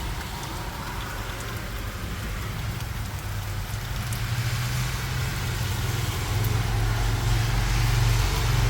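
Heavy rain falling steadily, with a low rumble of thunder building and growing louder through the second half.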